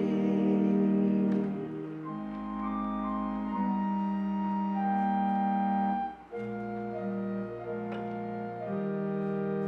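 Church organ playing slow, sustained chords that change every second or two, with singing voices fading out in the first second or so.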